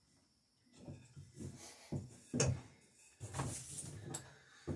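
Wooden boards being handled: several sharp knocks, the hardest about two and a half seconds in, with a short scrape of wood on wood between them.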